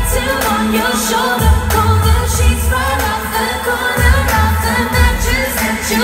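A woman singing live into a hand-held microphone over an amplified pop backing track, with a heavy bass line that comes and goes in blocks.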